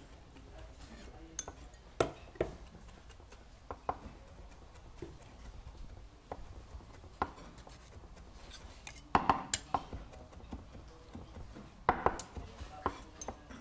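Kitchen knife knocking on a cutting board as grilled chicken breast is sliced: a dozen or so scattered knocks and clicks, loudest in two short clusters about nine and twelve seconds in.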